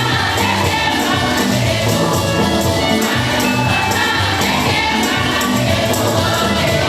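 A congregation singing a hymn together with instrumental backing and a steady percussion beat.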